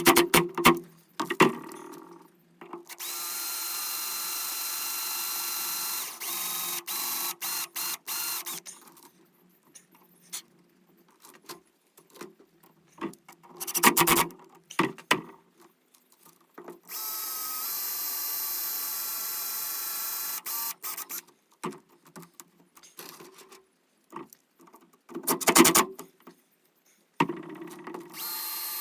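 Power drill driving stainless screws into plywood, running in three bursts of a few seconds each with a steady motor whine. Loud short knocks and clatter come between the runs.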